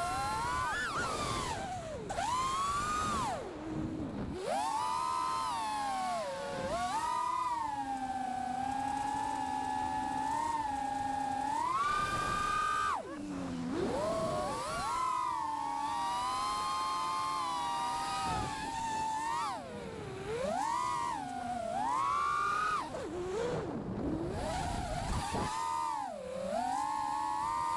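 A 5-inch FPV freestyle quadcopter's brushless motors and propellers whining, the pitch sweeping up and down again and again as the throttle is punched and chopped through manoeuvres.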